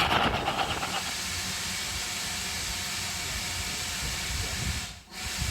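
Steam hissing steadily from a GWR Manor-class steam locomotive standing in a station, a faint rhythmic beat fading out in the first second. The hiss drops out briefly near the end.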